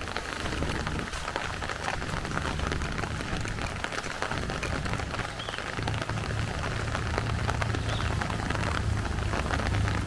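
Steady rain falling, a dense hiss of countless small drop ticks. A low steady rumble builds underneath from about six seconds in.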